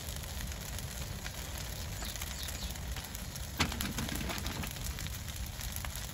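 Brush pile of cut trees burning, crackling over a steady low rumble, with scattered sharp pops; the loudest pop comes about three and a half seconds in.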